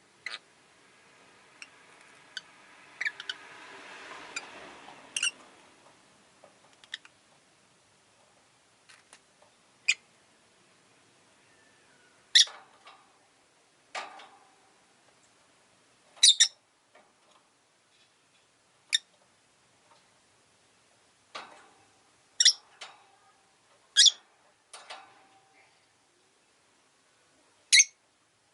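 Rosy-faced lovebird giving short, sharp, high chirps one at a time with pauses between them, about a dozen in all and loudest in the second half. A soft swell of noise rises and fades in the first few seconds.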